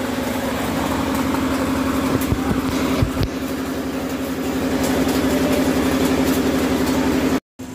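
A vehicle engine running steadily with an even, pulsing hum. The sound cuts out briefly near the end.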